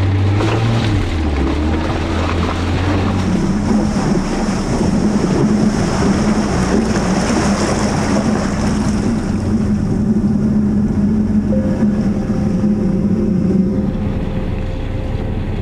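Off-road vehicle engine running steadily while under way, with wind noise on the microphone.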